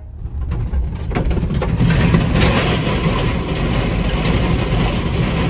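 Mahindra Thar driving across the steel deck of a Bailey bridge: a steady rumble of tyres on the deck plates, with scattered knocks and clanks from the panels.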